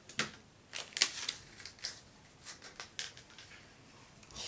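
Plastic wrapper being peeled off a plastic toy surprise egg by hand: several sharp, irregular crinkles and clicks.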